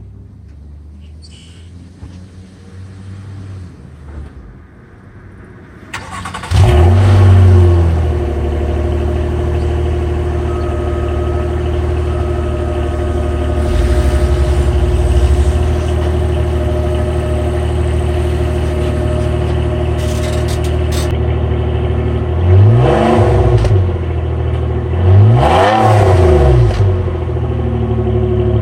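2009 Nissan Maxima's 3.5-litre V6 idling with a homemade exhaust leak; about six seconds in it turns suddenly much louder and stays loud and steady. Near the end the engine is revved up and back down twice.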